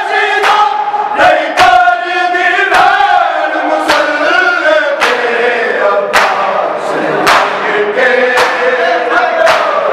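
A group of men chanting a Punjabi noha (mourning lament) in chorus, while a crowd beats their bare chests with their hands in unison (matam). The beats land as sharp slaps about once a second.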